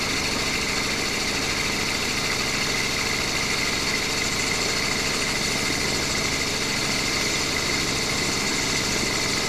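Steady mechanical hum and whine at a constant pitch, with several high tones held throughout and no change in level.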